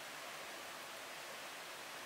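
Steady, even hiss of background noise with no distinct sounds in it.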